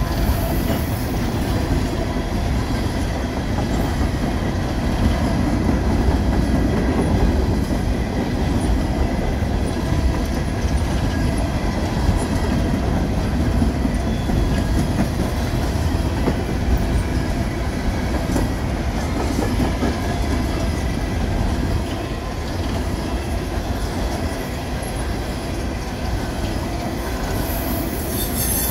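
Empty CSX coal cars rolling past, a steady rumble of steel wheels on rail that holds at the same level throughout.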